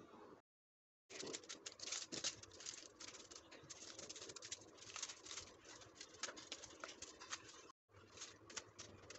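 Faint, irregular patting and crackling as a silicone spatula presses and smooths sticky barfi mixture into a foil-lined baking tray, the aluminium foil crinkling under it. The sound cuts out dead twice, briefly.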